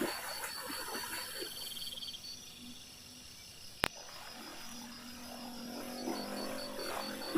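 Frogs and insects calling, with a high chirp pulsing several times a second and low drawn-out calls. A single sharp click about four seconds in.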